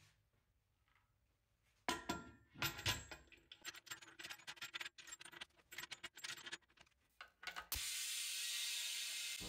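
Metal clanks and clicks as a pressure pot's lid is set in place and its wing-nut clamps are swung over and tightened. Near the end a steady hiss starts: compressed air filling the pot.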